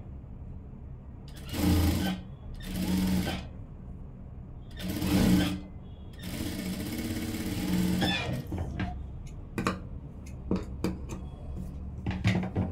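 JACK industrial sewing machine stitching fabric in four short runs, the last and longest lasting about two seconds, with a steady low hum between runs. Several sharp clicks follow near the end.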